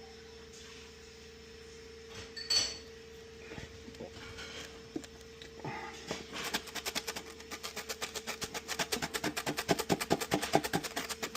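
Scattered light knocks from handling, then a fast, even run of clicks, about ten a second, growing louder over the last few seconds, like a ratchet or a cable tie being pulled tight, over a faint steady hum.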